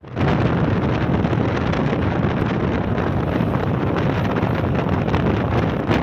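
Wind buffeting the microphone: a loud, steady rushing noise.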